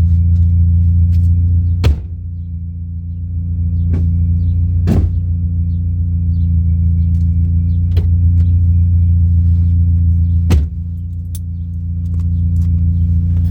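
Supercharged four-cylinder engine of a modified 2004 Mini Cooper S idling steadily, with a few sharp clunks over it, the loudest about two seconds in and again near the end.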